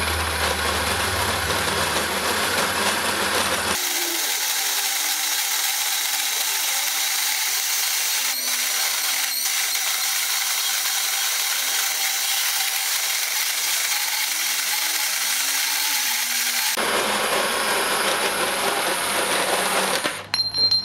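Makita XGT PB002G 40V cordless portable bandsaw cutting through quarter-inch steel channel with a freshly waxed but badly worn blade. It runs steadily. The middle stretch is played back fast, so it sounds higher and thinner. Near the end the saw finishes the cut and stops.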